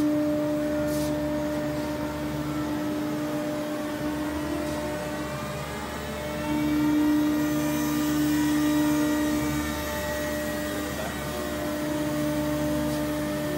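Steady machine hum from a running Multicam 5x10 CNC router and its equipment: one strong steady tone with a fainter higher tone above it over a low hum, growing a little louder about halfway through.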